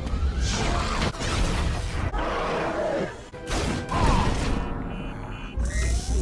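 Movie soundtrack of an action scene: music mixed with sound effects, with sharp crashing and clanking hits.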